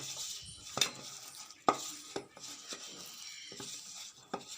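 Gram flour and rice flour dough being mixed with water in a bowl: soft wet stirring noise with irregular short clicks.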